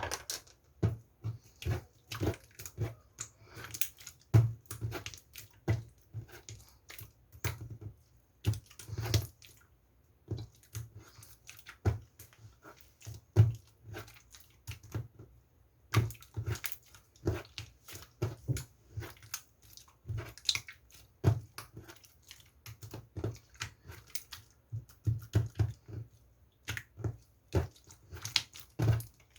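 Opaque slime being squeezed and pressed by hand, giving irregular wet clicks and squelches several times a second, with a couple of brief pauses.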